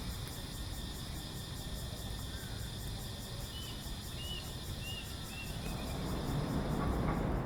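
Outdoor ambience in the city: a bird calls once, a quick phrase of four or five short chirps stepping down in pitch, over a steady pulsing insect drone and a low distant city rumble that swells near the end.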